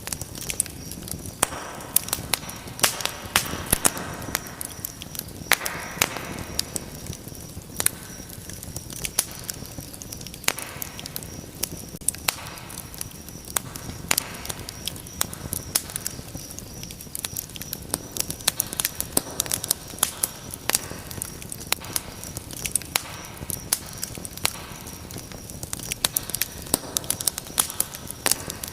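Wood fire in a fireplace crackling, with frequent sharp pops and snaps over a soft steady hiss of burning.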